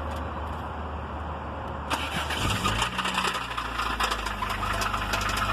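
1993 Honda Civic's four-cylinder engine running with a heavy knock. About two seconds in it turns suddenly louder and clattering, a rapid run of knocks over the engine's hum.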